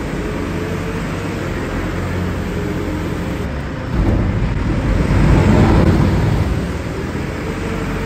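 Tractor engine running steadily, heard from inside the cab while the front loader's grain bucket pushes into a pile of grain. About four seconds in the engine works harder and the rush of shifting grain rises for a couple of seconds, then eases.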